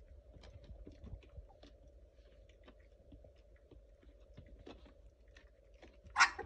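Young Labrador puppies moving about on a puppy pad: a scatter of small clicks and rustles from paws and mouthing, over a faint steady hum. A short sharp sound, much louder than the rest, comes near the end.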